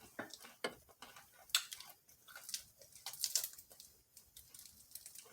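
The crisp fried shell of a lobster egg roll crackling and crunching as it is handled and broken into, in scattered sharp clicks with short crackly bursts. The sharpest snap comes about a second and a half in, and a cluster of crackles follows around three seconds in.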